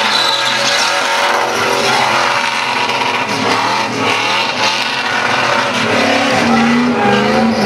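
Holden VR Commodore's engine revving hard during a burnout, with the rear tyres spinning and squealing. The revs dip briefly midway, then settle at a steadier, lower pitch near the end.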